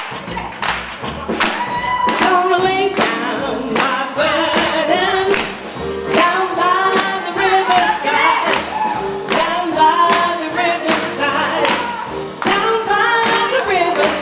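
Live band playing an up-tempo gospel number: a wavering, vibrato-laden melodic lead over steady drum hits and bass.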